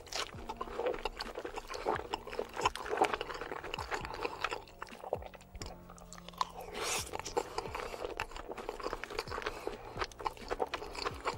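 Close-miked ASMR mukbang eating: a person chewing mouthfuls of creamy shell pasta with meat, many small irregular mouth clicks.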